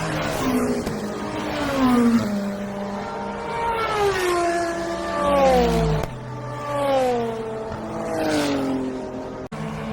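IMSA sports-prototype and GT race cars passing one after another at racing speed, each engine note sweeping down in pitch as it goes by. The audio cuts out for an instant near the end.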